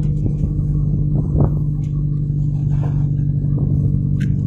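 Tugboat's diesel engine running with a steady low drone.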